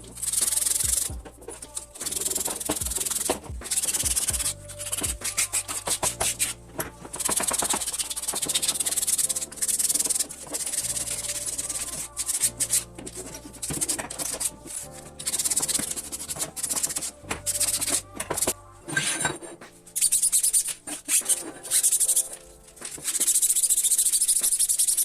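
Abrasive hand rubbing on bicycle parts: irregular strokes of scratchy hiss, some short and some held for a second or more, typical of sanding or scrubbing paint and rust off during a restoration.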